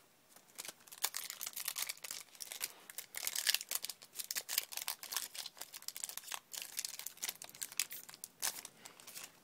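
Foil wrapper of a Yu-Gi-Oh! booster pack crinkling and being torn open by hand: a dense, irregular run of crackles that starts about half a second in and carries on to just before the end.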